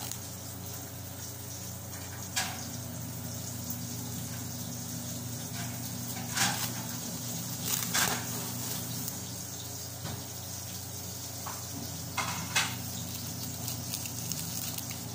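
Plastic cling film and a plastic bag crinkling as they are handled: a few brief crackles, the loudest about six to eight seconds in, over a steady low hum.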